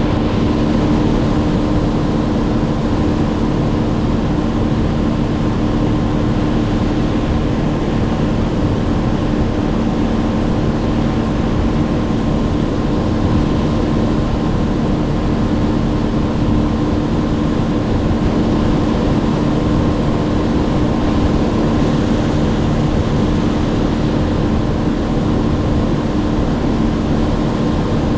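An engine running steadily at a constant speed, a loud, even drone with a few fixed hum tones that do not change.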